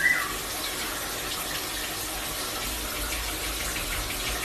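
Shower water running steadily, with a short whistle-like parrot call right at the start.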